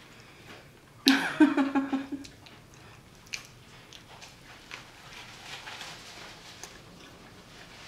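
Close-up eating sounds: a loud bite about a second in, with a brief pitched sound, followed by quieter chewing with scattered small clicks.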